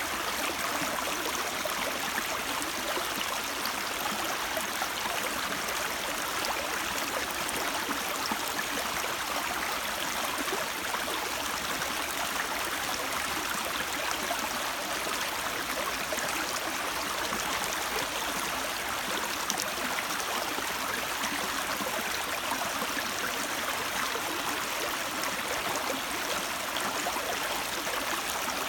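Steady rush of a stream flowing, with a little gurgling and no change in strength.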